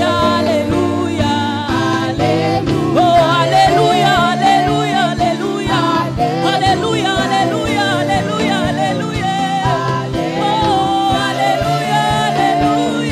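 Live gospel worship song: a group of male and female singers singing in harmony over keyboard and drums.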